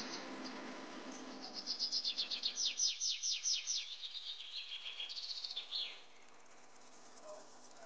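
A bird calling: a rapid run of falling high chirps, about five a second, starting about a second and a half in and lasting about four seconds. The sound drops almost to silence after about six seconds.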